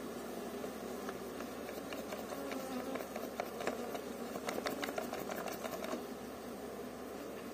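A mass of Strandja honeybees buzzing steadily over an open hive, with a run of sharp clicks and crackles around the middle as a bee-covered brood frame is pried up and lifted out of the box.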